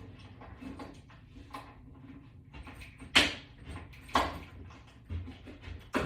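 Hardware being handled and fitted into a wooden wall mount: light clicking and scraping, with two sharp knocks about three and four seconds in.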